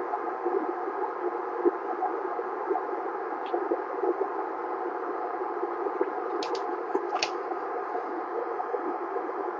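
Received audio from a CB base-station radio's speaker on the 11-metre band: a steady hiss of static with no clear voice. A few sharp clicks come about two thirds of the way through.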